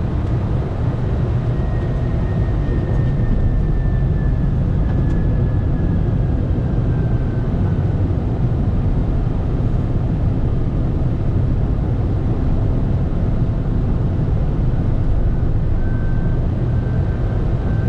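Steady flight-deck noise of a Boeing 747-400 freighter in descent: a dense, even low wash of airflow and engine noise. A faint high whine slowly falls in pitch over the first several seconds.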